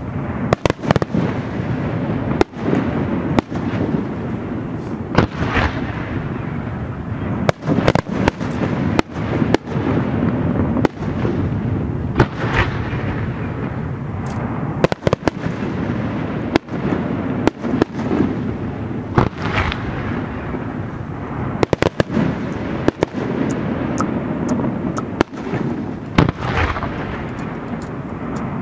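Aerial fireworks shells bursting in quick succession: dozens of sharp reports over a continuous low rumble.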